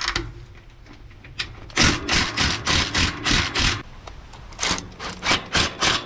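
Cordless impact driver with a socket extension running in two bursts of about two seconds each, rattling rapidly as it drives in the mounting bolts of a center pivot irrigation gearmotor.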